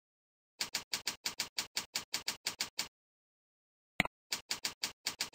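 Computer keyboard keys clicking in quick, even typing, about five keystrokes a second, for a little over two seconds. About four seconds in comes a single sharper click, a mouse click into the next field, followed by another short run of keystrokes.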